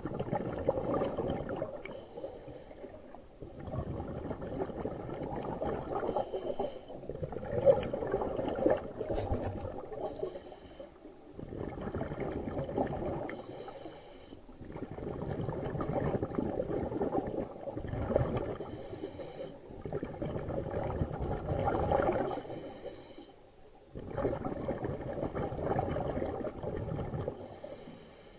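Scuba diver breathing through a regulator, heard underwater: long bubbly exhales of a few seconds each, separated by short hissing inhales, repeating over and over.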